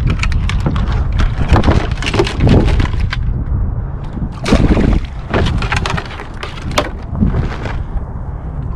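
Wind buffeting the microphone, with irregular clattering and crackling as plastic duck and goose decoys are handled, their cords pulled, through floating dry reeds at the water's edge.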